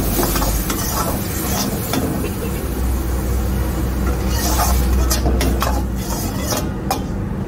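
Stir-fry sizzling in a steel wok over a gas burner with a steady low rumble, as liquid is ladled in and tossed with the vegetables. A steel ladle scrapes and knocks against the wok several times in the second half.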